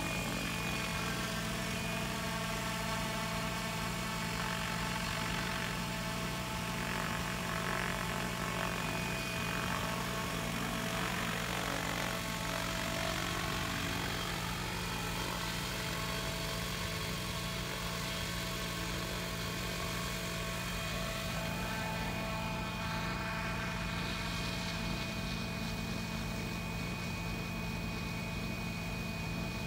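Radio-controlled model helicopter flying, its rotor and drive giving a steady high whine. The pitch sweeps as it passes about ten to thirteen seconds in.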